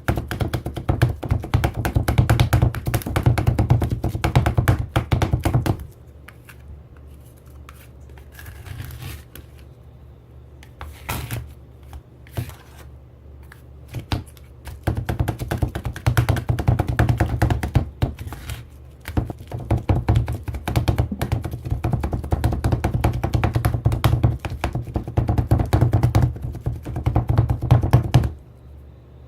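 Rapid clacking and tapping of spatulas chopping on the metal plate of a toy rolled-ice-cream maker, in two long spells: it stops about six seconds in, leaving only a few scattered taps, and starts again around fifteen seconds in, stopping shortly before the end.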